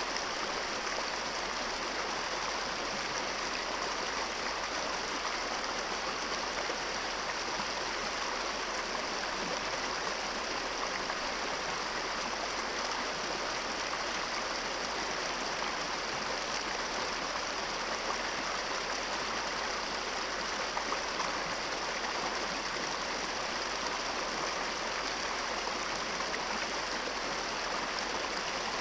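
Small brook rushing steadily over rocks in a shallow riffle.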